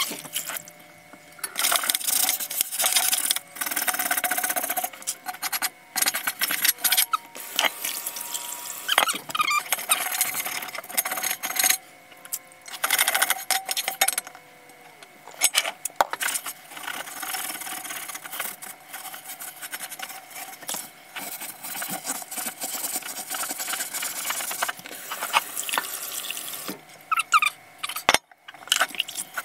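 A stiff dish brush scrubbing a ridged cast iron grill pan in a sink, its bristles rasping over the ridges in irregular strokes with short pauses, mixed with running tap water and the clink of the pan against the sink.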